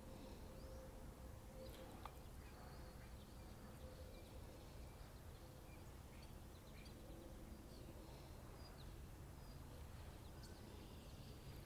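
Near silence: faint outdoor ambience, a low steady rumble with scattered faint bird chirps.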